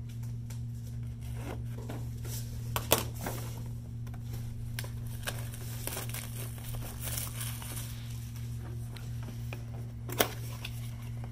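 Plastic shrink wrap being torn off a cardboard game box and crumpled in the hand: irregular crinkling and tearing with two sharp clicks, about three seconds in and near the end. A steady low hum runs underneath.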